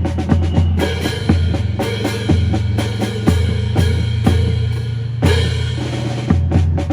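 Percussion-driven drill music with a steady beat of about two strikes a second: bass drum and snare over a low bass line.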